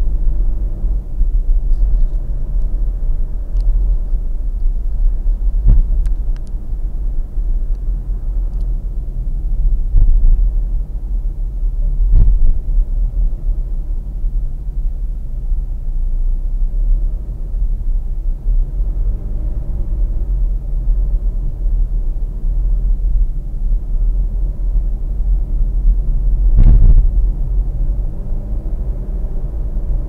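Low, steady rumble of a car's engine and tyres heard from inside the cabin through a dashboard camera's microphone, with a few short thumps, the loudest near the end.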